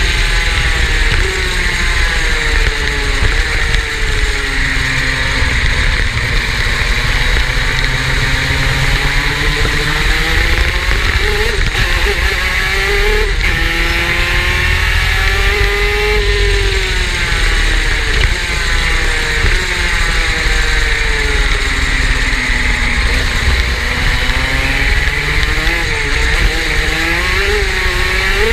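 Superkart's two-stroke engine running hard. Its pitch rises and falls repeatedly as it accelerates and backs off.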